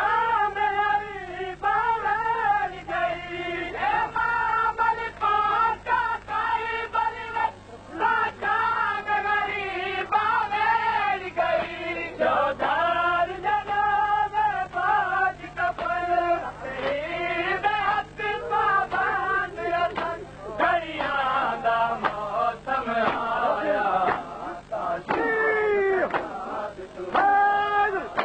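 Noha, a Shia lament, sung by a solo voice in long, bending, ornamented phrases, with a steady low hum beneath.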